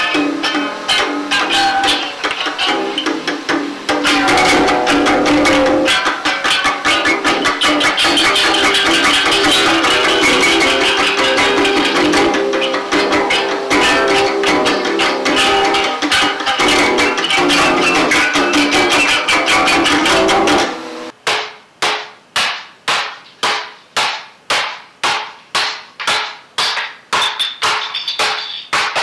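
Live band music from a mono cassette recording of a live set: a loud, dense wash of playing that breaks off about two-thirds through into single sharp strokes, about two a second.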